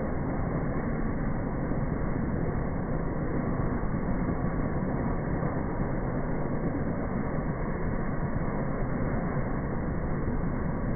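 Helicopter running, a steady muffled rumble with no breaks.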